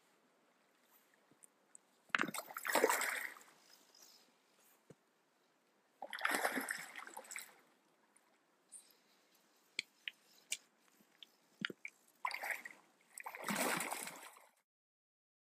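Water splashing in a shallow river in several bursts of about a second each: coho salmon thrashing at the surface. The sound cuts off abruptly near the end.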